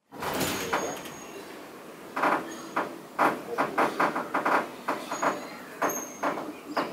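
A rapid, irregular run of short knocks and clatters, several a second, starting about two seconds in, over low background noise in a railway carriage standing at a platform.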